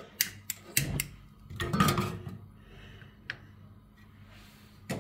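Sharp clicks of a handheld spark lighter at a gas stove burner, several in the first second and a few single ones later, with a louder, brief noise about two seconds in.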